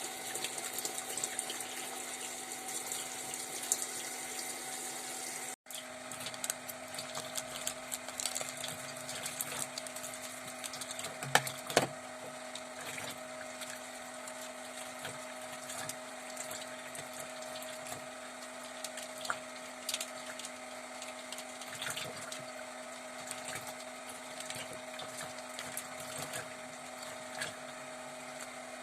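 Water running and splashing, as from a tap during washing, over a steady mechanical hum like a water pump, with scattered small clicks and a couple of sharper knocks about eleven seconds in.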